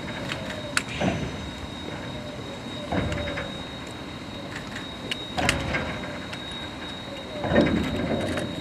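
Steam locomotive D51 200 working slowly, its exhaust giving four slow, widely spaced chuffs about two seconds apart, with a couple of sharp metallic clicks between them.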